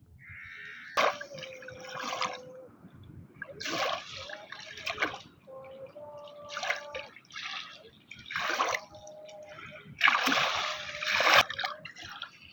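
Water splashing in a string of uneven bursts, with the longest and loudest splash about ten seconds in.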